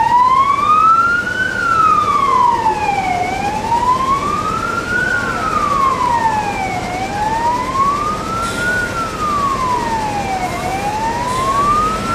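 Fire engine's siren sounding a slow wail, its pitch rising and falling smoothly about once every three and a half seconds.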